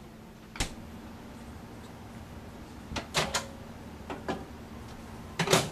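Kitchen appliance doors handled: a refrigerator door shut with a knock about half a second in, then clicks and knocks as the microwave door is opened and a wooden kendama is set inside, with the loudest clack near the end. A faint steady hum lies underneath.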